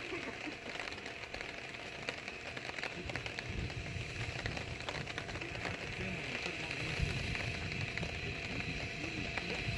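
Outdoor ambience: wind rumbling on the microphone, getting stronger after about three seconds, with faint distant voices and a steady high-pitched drone.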